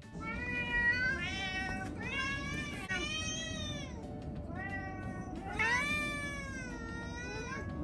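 Domestic cats meowing over and over: a run of about six long, drawn-out meows, each rising and then falling in pitch.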